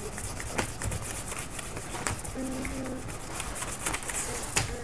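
Rapid back-and-forth scribbling of a coloring tool on paper, a steady scratchy hiss of many quick strokes with a few sharper taps.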